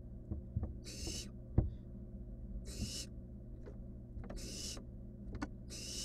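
Barn owl nestlings giving their rasping, snore-like hissing begging calls, one hiss about every one and a half seconds, four in all. Between them come knocks and thumps as the chicks shift against the wooden nest box, the loudest about a second and a half in.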